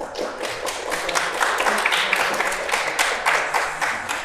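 Small group of people applauding, many hand claps starting suddenly and overlapping densely.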